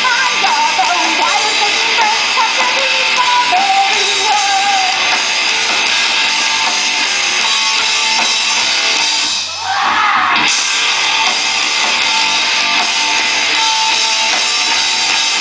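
Live rock band playing an instrumental passage at full volume, electric guitar to the fore, with a brief drop in level about two-thirds of the way through before it picks up again.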